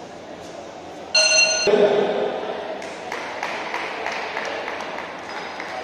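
A boxing ring's timer bell sounds once, a loud ringing tone about a second in that lasts about half a second, signalling the end of the bout. Scattered clapping follows.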